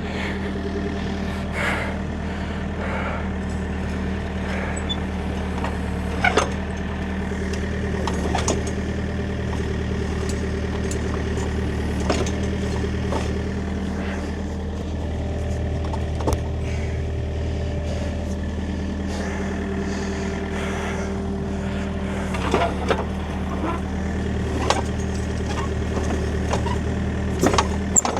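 Kobelco excavator's diesel engine running steadily while the track is driven round onto the idler, with occasional sharp metallic clanks as the track links ride over and catch on the track guide.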